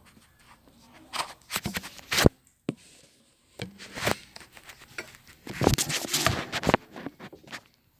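Irregular clicks, knocks and rustles of objects being handled, with a sharp knock a little over two seconds in and a busier clatter near the end.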